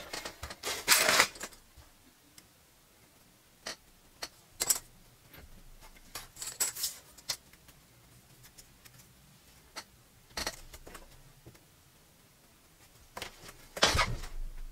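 Scattered clicks, taps and rustles of plastic model-kit parts and a runner being handled and set down on a wooden table, in short bursts with quiet gaps between.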